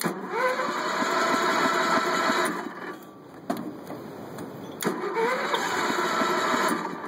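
Massey Ferguson 14 garden tractor's engine cranked by its electric starter on a cold start: a click, then a burst of cranking that spins up in pitch for about two and a half seconds, a pause, and a second click and burst of about two seconds.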